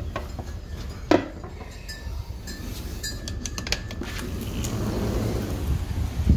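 Sharp metallic clinks and knocks, one loud about a second in and a quick cluster around three seconds in, over a low wind rumble on the microphone.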